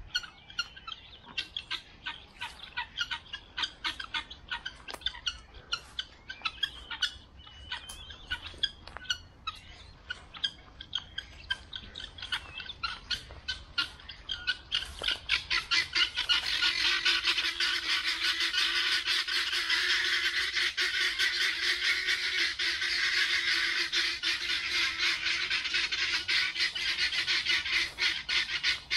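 A flock of guinea fowl calling in alarm. Scattered short harsh cries build, about halfway through, into a continuous, rapid, rhythmic chatter from many birds, the sign of a flock disturbed and stressed by being followed. A steady low hum runs under the second half.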